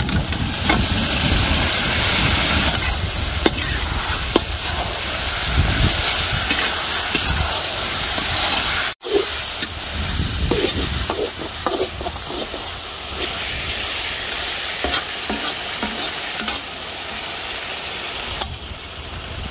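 Pre-sautéed country chicken pieces frying in hot oil with onion, garlic and ginger, sizzling steadily while being stirred, with scattered scrapes and clicks of the stirring utensil against the pan. The sound cuts out for an instant about nine seconds in.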